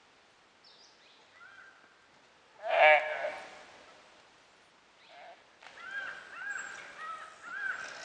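A gaur calf lets out one loud, harsh distress bleat about three seconds in while dholes attack it. Later, a run of short, high whistles comes from the dhole pack, several a second, to the end.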